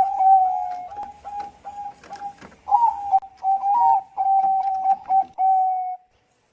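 Zebra dove (Thai-bred perkutut bangkok) singing: rapid runs of short staccato coos at one pitch, with a brief break midway. The last run ends in a longer drawn-out note about six seconds in.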